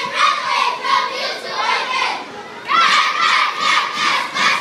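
A group of children speaking together in unison, a choral reading recited phrase by phrase, with a short break about halfway through.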